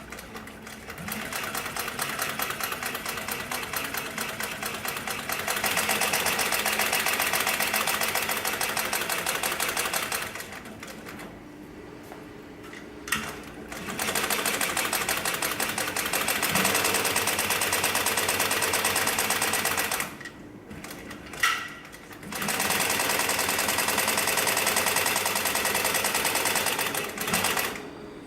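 Heavy-duty triple-feed (walking-foot) industrial sewing machine of the Juki TNU-243 type, running in three long bursts of rapid, even stitching with short pauses between them. The first burst picks up speed partway through.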